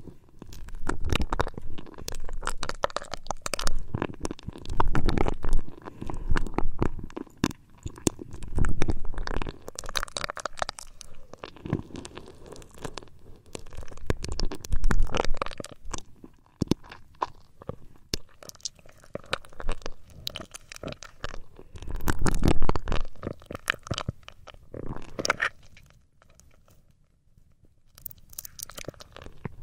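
Hands rubbing and kneading an ear-shaped binaural microphone in uneven bursts, a muffled rumbling, crunchy friction right at the ear. It drops to near silence for a couple of seconds near the end.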